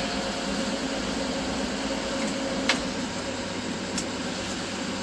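Old 6-volt Chevrolet's engine idling steadily, with two short sharp clicks, one about two and a half seconds in and another about four seconds in.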